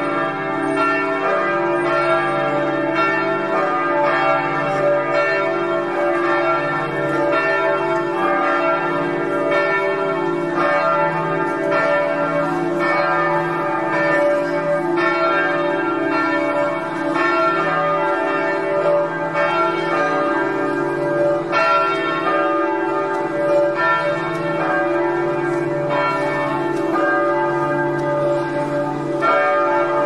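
Vilnius Cathedral's church bells ringing together. Several bells of different pitches are struck over and over, their tones overlapping in one continuous peal.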